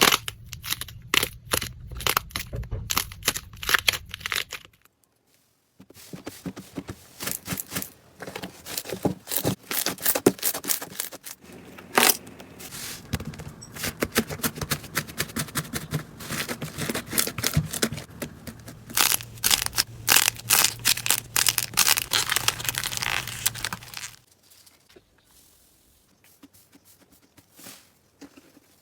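Slime being squeezed, pressed and stretched by hand, giving dense runs of sharp crackling, popping clicks. There is a short break about five seconds in, and the clicking turns much softer and sparser near the end.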